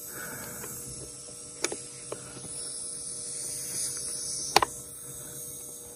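Faint steady hiss of air leaking from a tractor tire's valve stem, which the owner traces to the valve core's rubber seal, with three sharp clicks as the valve core is worked with a tool.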